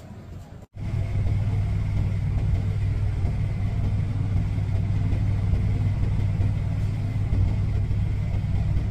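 Steady low drone of a bus engine and cabin rumble, heard from inside the bus, with a thin steady whine above it. It starts abruptly about a second in, after a moment of quieter street sound.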